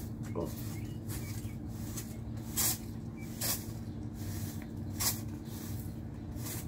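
Broom bristles sweeping a patio: a run of short swishes about once a second, a few of them louder. A steady low hum runs underneath.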